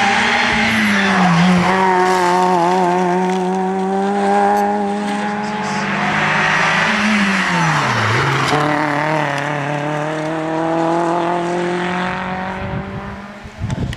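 Rally car engines at high revs on a hillclimb, passing one after another. The engine note dips briefly about a second in and recovers. About seven seconds in it falls in pitch, then rises steadily as the next car accelerates away.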